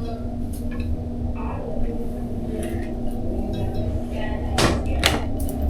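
Background music with held notes, with two sharp clicks about half a second apart near the end.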